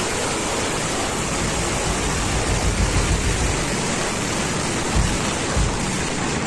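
A burning Dussehra effigy: the firecrackers packed inside it and its flames make a dense, steady hiss of crackling, with a few low thumps about five seconds in.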